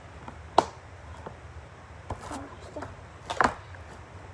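Hands squeezing and pressing a large mass of slime into plastic tubs, giving a sharp snap about half a second in, a few lighter clicks, and a louder burst of crackly pops near three and a half seconds.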